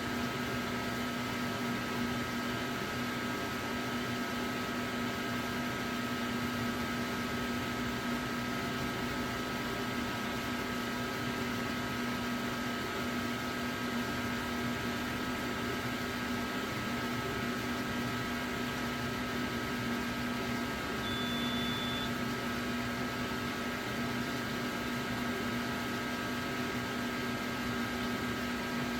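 Steady machine hum with a few unchanging pitched tones, like equipment or a fan running in a small room. About two-thirds of the way through there is a faint, short, high tone lasting about a second.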